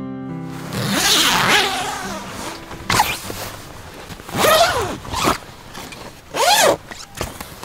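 Tent door zipper being pulled open in about four strokes, the first the longest, each a rasping sweep that rises and falls in pitch.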